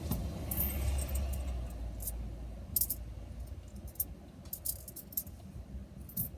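Loose coins clinking against each other in a hand as they are sorted through: a scattered series of sharp clinks, over a low rustle of handling in the first couple of seconds.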